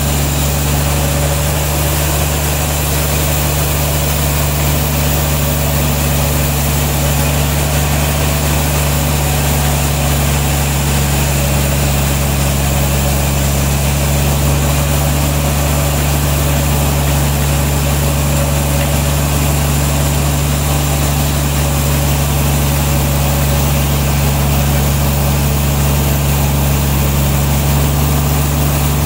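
Sawmill's engine running steadily at an even pitch, not under cutting load.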